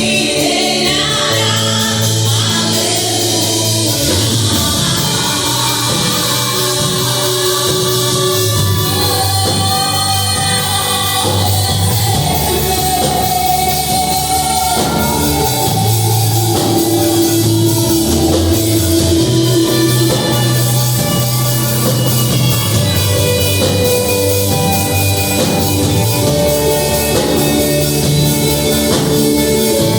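Music with singing over a steady, heavy bass line.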